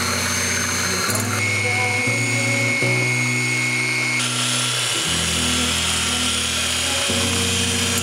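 Electric hand mixer whirring as its twin beaters whip eggs into a froth, its whine shifting about a second and a half and again about four seconds in. Soft background music plays underneath.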